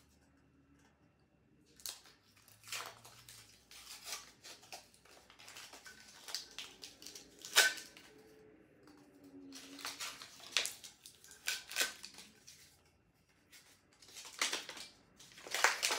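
Sublimation transfer paper and heat tape being peeled and torn off a freshly pressed tumbler: irregular crinkling and ripping of paper, with the sharpest rip about seven and a half seconds in.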